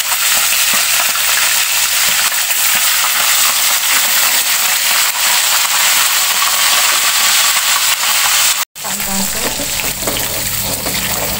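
Chicken pieces deep-frying in hot oil in a wok, a loud, steady sizzle that cuts out for an instant about three-quarters of the way through before carrying on.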